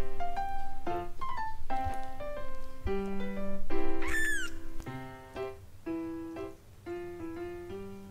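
Background music with a stepped melody of notes. About four seconds in, a tiny golden kitten gives one short, high mew that rises and then falls.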